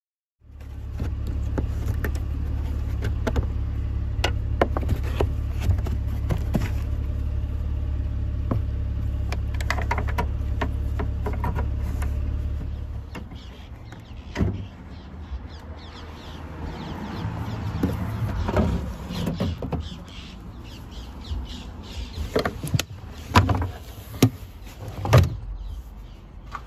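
A steady low rumble for about the first half, then scattered clicks and knocks of a hand tool and plastic trim being handled while the trunk lining fastener is undone, with a few sharper knocks near the end.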